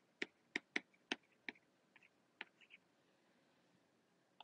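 Faint, sharp taps and clicks of a stylus on a tablet screen during handwriting, about eight in the first two and a half seconds, then a pause and one more near the end.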